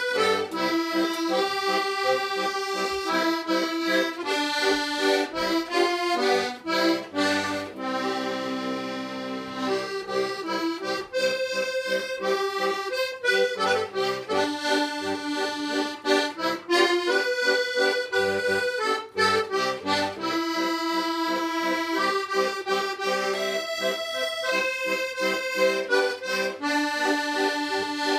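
Button accordion playing a traditional tune: a melody of short, quickly changing notes over bass and chords, broken by a few longer held chords about eight seconds in.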